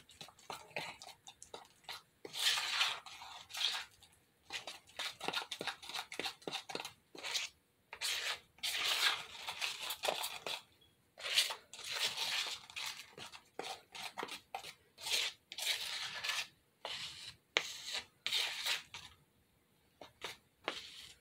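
A utensil stirring and scraping thick lightweight spackle, tinted with pink craft paint, in a plastic tub: irregular rasping strokes with short pauses between them.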